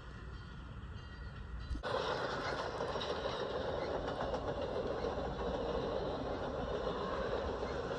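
Train running on the rails, a steady rumble with faint clicking from the track; about two seconds in it suddenly becomes louder and brighter and stays that way.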